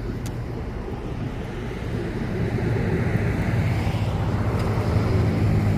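A motor vehicle's engine hum growing steadily louder as it approaches, with road noise swelling.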